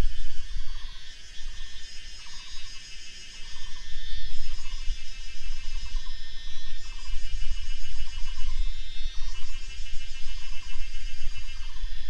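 Night chorus of insects and frogs: many high, steady insect trills. Beneath them one caller repeats a short pulsed call about one and a half times a second, over a low, uneven rumble.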